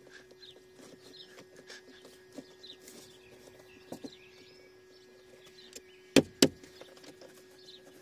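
A steady hum from the car with the ignition on, which is not the heater blower fan: the blower motor is not running. Hands are handling the wiring connector over it, with rustling, small clicks and two sharp clicks close together about six seconds in. Birds chirp faintly.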